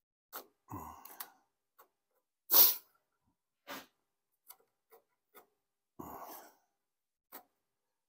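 Pencil scratching on a pine board in short strokes while a template is traced, with a few breath noises; the loudest sound is a short, sharp burst of breath about two and a half seconds in.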